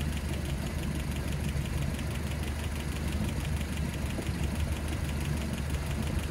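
Land Rover Series 3 2.25-litre four-cylinder petrol engine idling steadily, with a rapid, even valve tapping from the top end: valves 3 and 4 are still tapping after their clearances were set, which the owner takes to mean they need adjusting again.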